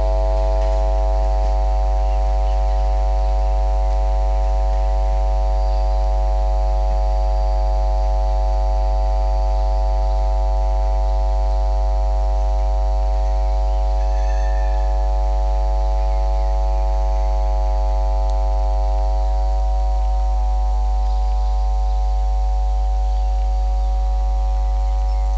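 Steady electrical mains hum with a buzzing ladder of overtones, unchanging in level throughout. A faint brief chirp sounds about halfway through.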